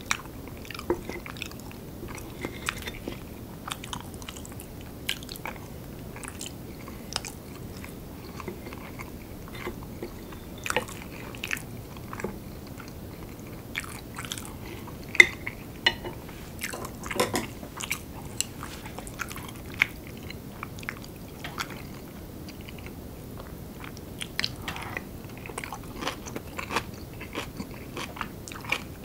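Close-miked eating sounds: chewing and biting mouthfuls of curry rice, with a spoon and chopsticks clicking and scraping against a ceramic plate as the last of the curry is gathered up. There are many short, sharp clicks throughout.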